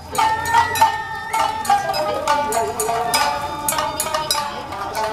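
Traditional Japanese street-procession music played live: shamisen plucked by the marching players, with sharp percussive strikes several times a second under a high held melody line.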